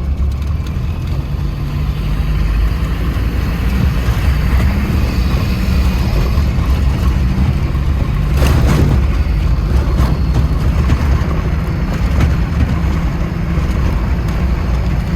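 Off-road vehicle driving with its engine running under a steady, heavy low rumble, and a brief louder rush of noise about eight and a half seconds in.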